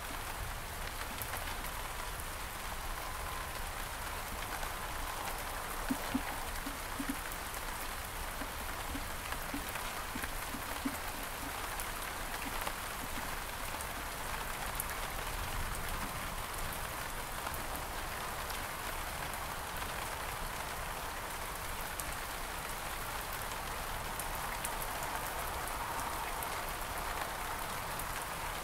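Steady rain falling on garden surfaces, an even hiss of drops, with a few louder individual drop hits about six to eleven seconds in.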